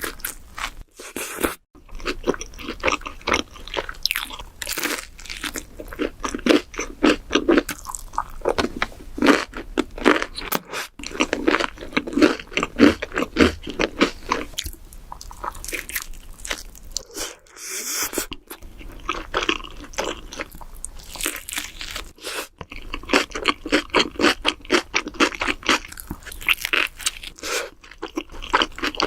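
Close-miked chewing of deep-dish pizza: dense, rapid crunches and mouth sounds, broken by a few very short silent gaps.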